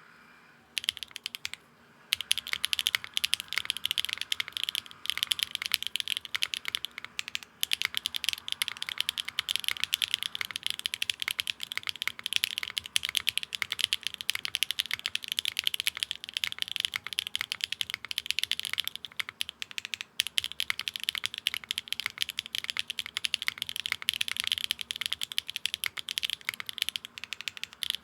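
Fast continuous typing on a Neo65 mechanical keyboard with a carbon fiber plate, no foam and GMK keycaps, fitted with Akko x HMX collab linear switches: a dense, high-pitched clack of keystrokes. The typing starts about a second in and pauses briefly near two seconds.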